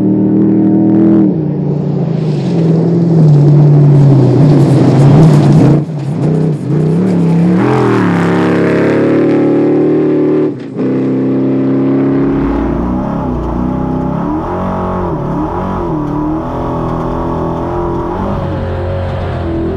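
V8 engine of the Beast347 Dakar rally car heard from onboard, running hard with the revs rising and falling. There is a short drop in the engine sound about six seconds in and another sharp one near eleven seconds, and after that the revs waver up and down unevenly.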